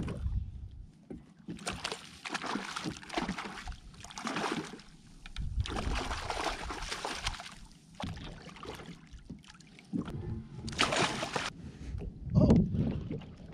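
Water splashing and sloshing against the side of a fishing kayak as a small lingcod thrashes at the surface beside the hull, in irregular swells of a few seconds each. A louder bump near the end.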